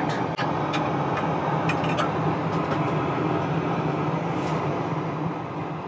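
Steady drone of an Airbus A380 cabin in flight, with a few light clicks and knocks from things being handled and a short hiss about four and a half seconds in.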